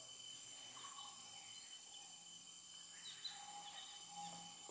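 Quiet rural ambience: a faint, steady high insect trill, with a few faint bird chirps about three seconds in.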